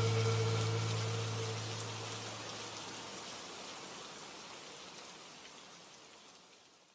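Steady hiss of a rain sound effect fading out evenly until it is gone just before the end. A low held note from the song dies away under it in the first two to three seconds.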